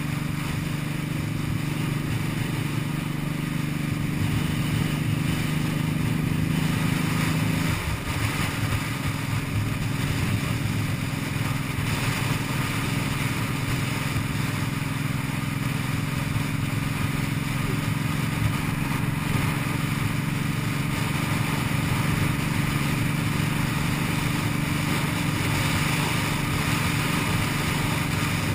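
Cruiser motorcycle engine running steadily under way, over a steady hiss of air noise. About eight seconds in, the level dips briefly and the engine note settles slightly lower.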